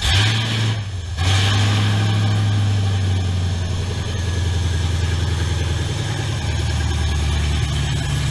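The 6.2-litre LS3 V8 of a 2013 Camaro SS comes in suddenly and then idles steadily, with a low, even hum.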